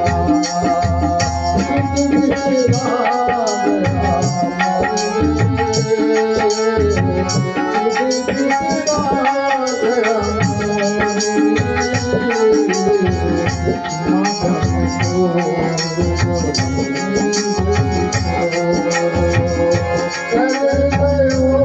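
A bhajan (Hindu devotional song): voices singing a gliding melody over a steady hand-drum beat, with bright, rapid percussion strikes.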